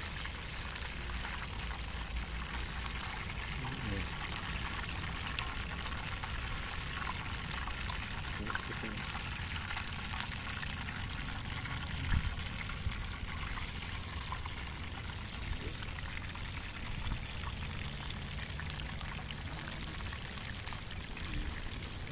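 Quails frying in hot oil: a steady sizzle with fine crackling, and one sharp knock about twelve seconds in.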